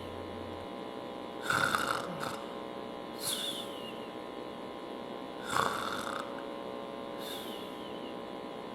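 A man deliberately simulating snoring: two loud snores about four seconds apart, each followed by a softer breath sound, over a steady faint hum. This is simulated snoring, the over-breathing that drives his exhaled CO2 down.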